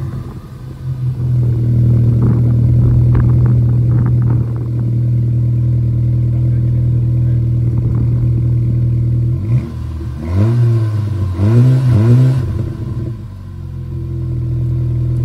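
VW Scirocco's turbocharged four-cylinder petrol engine starting and running at idle, with its failed ignition coil pack replaced. About nine seconds in, the revs are blipped up and down a few times in quick succession, then it settles back to a steady idle.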